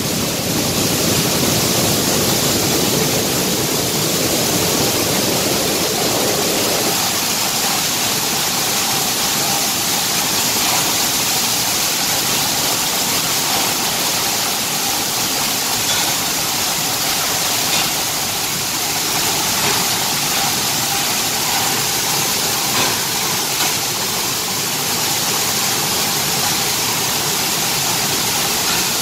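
Flour-mill grain machinery running with grain pouring through it: a loud, steady rushing noise. Its lower part drops away about seven seconds in.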